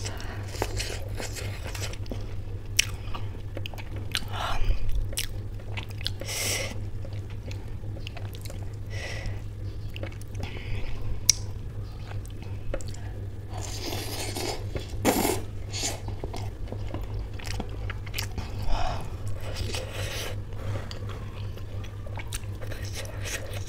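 Close-miked chewing and biting of samosa chaat with ghugni: scattered crisp crunches of fried samosa pastry between softer chewing. A steady low hum runs underneath.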